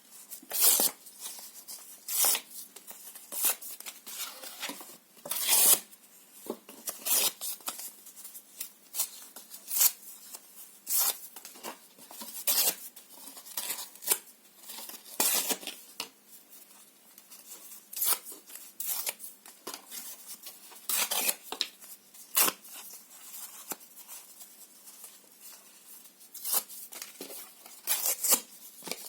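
Paper and cardboard being torn by hand in short, irregular rips, roughly one every second, with brief pauses between.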